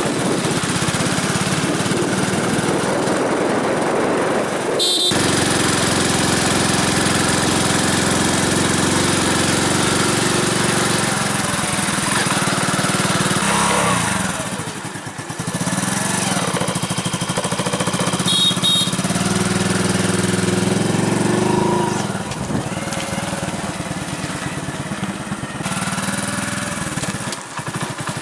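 Engine of a moving vehicle running steadily while driving. Its sound changes abruptly about five seconds in and dips briefly around the middle.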